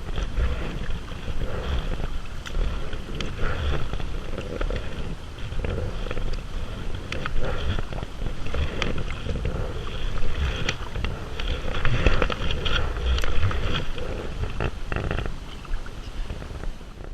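Paddling a kayak on a river: water splashing with scattered knocks, and wind rumbling on the microphone. The sound cuts off abruptly at the end.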